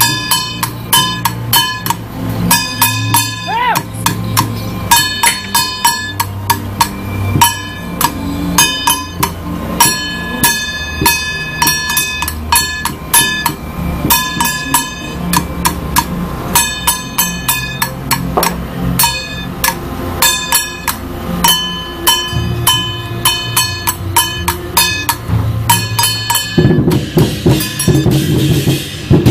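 Temple-procession percussion: ringing metal gongs and cymbals struck in a steady beat over drum thumps. About 27 seconds in, the metal strikes stop and a deeper, faster drumming takes over.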